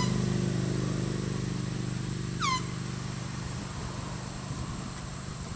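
Two brief toots from a hand-held canned air horn, one right at the start and one about two and a half seconds in, each sliding down in pitch. A low steady hum runs underneath and slowly fades.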